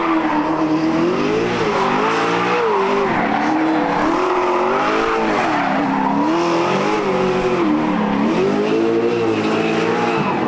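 Drift car engine revving up and down, its pitch rising and falling every second or two, over a steady haze of tyre squeal.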